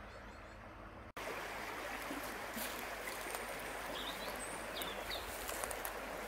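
Small shallow river running over stones, a steady rush of water that becomes suddenly louder about a second in, with a few short bird chirps in the middle.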